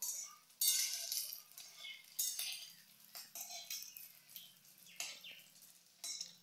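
Pieces of egg frying in hot oil in a steel wok, sizzling in short irregular bursts as a steel spatula stirs and turns them, with the spatula scraping and clicking against the pan.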